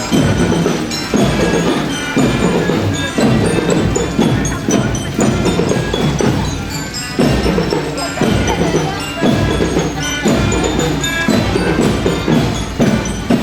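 A marching band playing, with short high ringing notes from mallet bells carrying the melody over repeated drum strokes.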